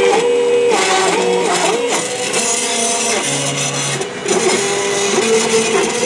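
Stepper motors of a home-built CNC router driving the X and Y axes through a toolpath: several whining tones that hold, jump and glide in pitch as the moves change speed and direction. A light rattle from the frame, whose screws are not yet Loctited and tightened, runs under it.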